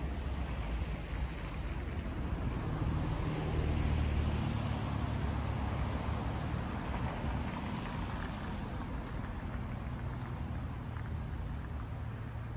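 A vehicle engine running with a low hum over city traffic noise. It is loudest about three to four seconds in and then fades gradually.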